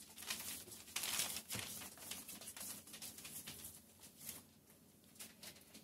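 Newspaper rustling and crinkling under Shetland sheepdog puppies' paws as they scamper across it, in quick irregular scuffs that are loudest about a second in.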